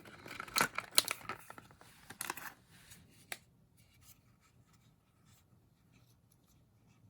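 Packaging and a small plastic alarm unit being handled: a run of sharp clicks, crackles and rustles in the first three seconds or so, then only faint scattered handling ticks.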